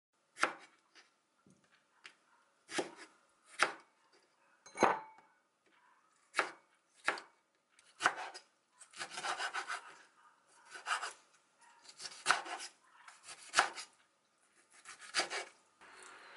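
Kitchen knife chopping kimchi on a wooden cutting board: single sharp cuts roughly a second apart, some followed by a short scrape of the blade.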